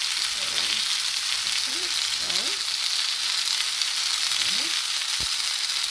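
Chicken longganisa sausages frying in a pan, a steady sizzle, with one sharp click about five seconds in.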